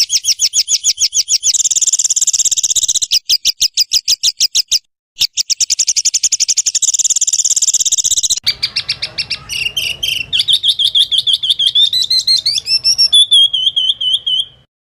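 Spliced songbird tutor recording: a rapid rattle of sharp high notes, about a dozen a second, broken by a short silent cut, then a varied warbling phrase, a wavering trill that rises in pitch, and a run of short curling notes that stops abruptly.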